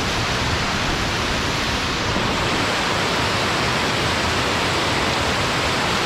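Large waterfall pouring, a loud, steady rush of falling water.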